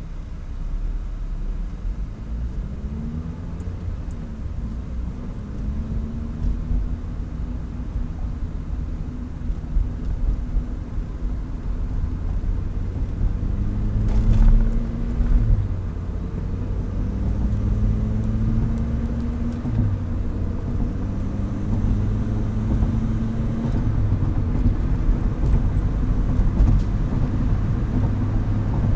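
Mazdaspeed MX-5's turbocharged 1.8-litre four-cylinder engine idling with its idle speed wandering, the pitch rising and dipping several times. This is an intermittent rough idle that the owner suspects comes from a vacuum leak.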